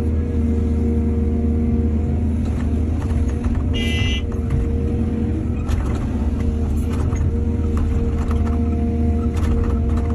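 Excavator's diesel engine running steadily, with scattered knocks and a brief high-pitched squeal about four seconds in.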